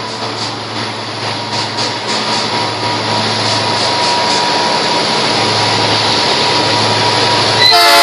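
Several diesel-electric locomotives led by a GM GT22 run steadily as they approach, growing louder. The locomotive horn starts to blow just before the end.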